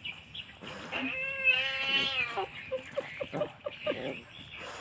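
A black kitten yowling as a puppy wrestles it. About a second in comes one long drawn-out cry that rises slightly and then falls, followed by several short cries.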